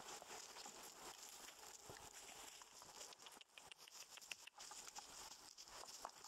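Faint footsteps rustling and crunching in dry fallen leaves, with scattered irregular small clicks.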